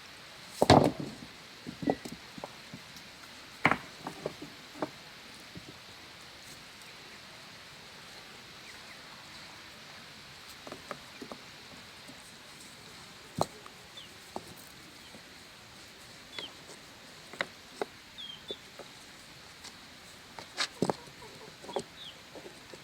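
Irregular knocks and clatters, the loudest about a second in, with a few short high calls of farmyard birds in the background.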